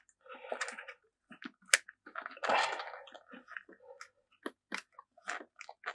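Small plastic parts being handled: a run of light clicks and taps, with a longer rustling scrape about two and a half seconds in, as an RC truck's on/off switch and its label plate are fitted in place.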